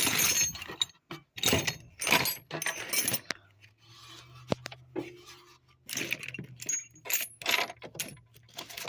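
Small loose metal nuts and bolts rattling and clinking in a series of short bursts as they are rummaged through in a toolbox drawer.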